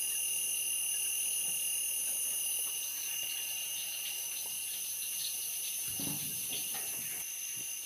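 Steady chorus of night insects in tropical forest: several unbroken high, even trills at different pitches layered together.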